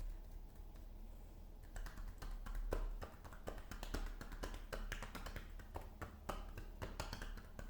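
Hands lightly and rapidly patting a person's back in percussive drainage massage, which loosens phlegm to bring on coughing. The quick, uneven pats start about two seconds in.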